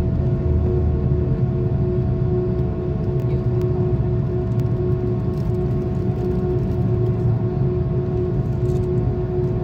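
Airbus A330 jet engines heard from inside the cabin: a steady low rumble with a constant hum on top, holding at an even level with no spool-up.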